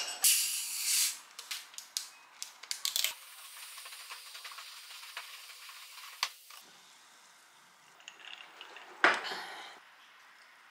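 Cola fizzing as it is poured from a plastic bottle into a glass: a steady hiss for a few seconds that stops. A short burst of noise follows near the end.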